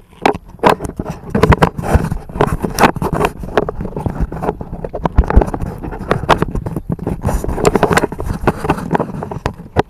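Handling noise from a hand-held action camera: irregular rubbing, scraping and knocking on the camera body and microphone over a low rumble.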